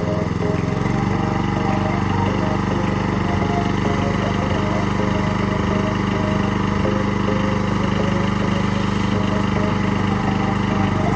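Old petrol lawn mower engine running steadily at constant speed.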